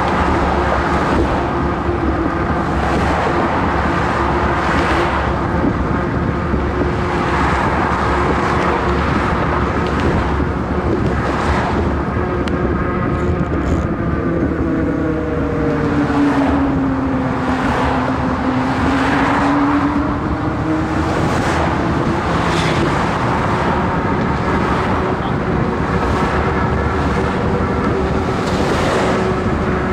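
Steady, loud road-traffic noise from cars and trucks passing close by on the bridge roadway, with repeated brief swells as individual vehicles go past. A low hum runs through it, dipping in pitch about halfway through and rising back.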